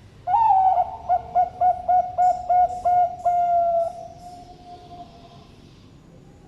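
Zebra dove (Bangkok-type perkutut) cooing one full song phrase: an opening note, then a run of about seven quick short coos, ending on a long held note that fades away.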